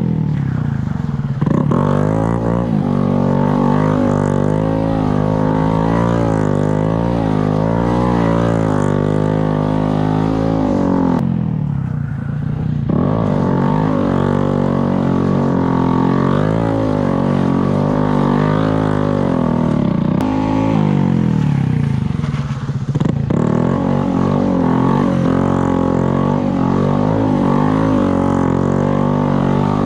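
Honda Grom's 125 cc single-cylinder engine revving up and down under throttle, its pitch wavering as the throttle is worked. The revs drop off briefly twice, about twelve and twenty-two seconds in.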